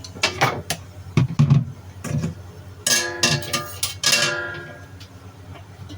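A metal wok being set down and handled, with a series of clanks and knocks. About three seconds in, the wok starts ringing with several clear tones that fade over about a second.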